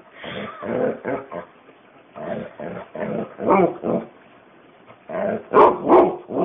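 A dog 'talking': a string of short, pitch-bending grumbling whines and yowls in four bouts, given in answer to being told to say good morning.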